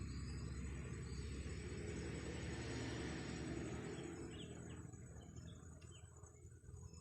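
Nature ambience: a dense steady wash that fades away after about four seconds, leaving faint short chirps of insects and birds.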